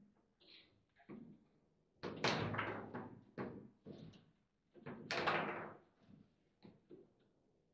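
Table football (foosball) in play: sharp knocks and clacks of the ball being struck and trapped by the plastic men, and of the rods and ball hitting the table. They come irregularly, loudest about two seconds in and again about five seconds in.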